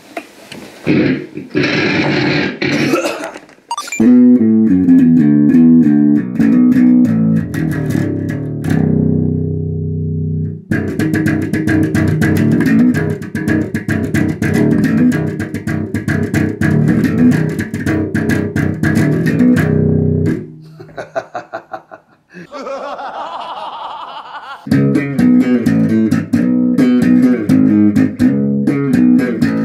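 Four-string electric bass guitar played fingerstyle in riffs on inexpensive Chinese strings that, after a week of playing, still sound excellent. The playing comes in a few seconds in and stops briefly about two-thirds through before starting again.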